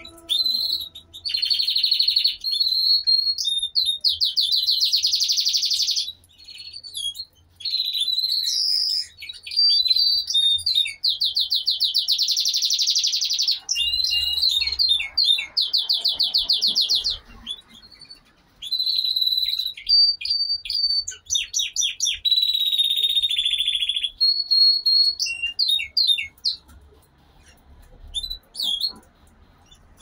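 Fiorino frilled canaries singing: long phrases of fast trills and rolling notes mixed with chirps, broken by short pauses. The song thins to scattered chirps in the last few seconds.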